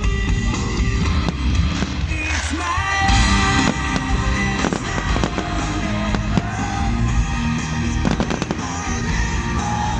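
Fireworks bursting with repeated sharp bangs over loud music with sustained notes.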